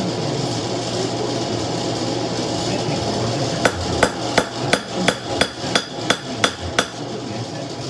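Hand hammer striking a hot knife blank on a post anvil: about ten blows at roughly three a second, starting about three and a half seconds in, each with a short metallic ring. A steady rushing noise runs underneath.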